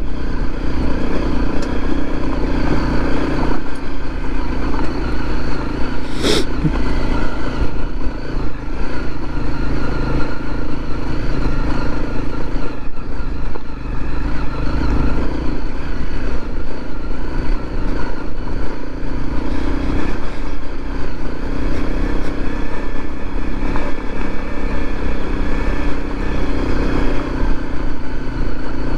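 Dual-sport motorcycle engine running steadily under way on a dirt road, with one sharp click about six seconds in.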